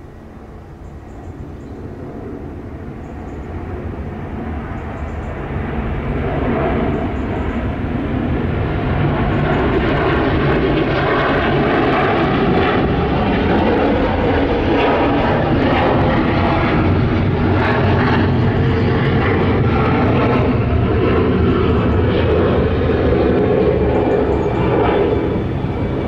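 Virgin Atlantic Airbus A330 jet airliner climbing out after takeoff, its engines at takeoff power: the noise swells from a distant rumble over the first several seconds to a loud, steady, crackling jet noise that holds to the end.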